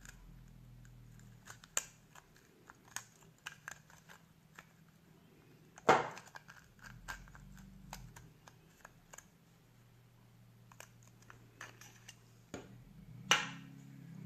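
Small clicks and taps of hand work on a small lamp part, with two sharp louder knocks about six seconds in and near the end, over a faint steady low hum.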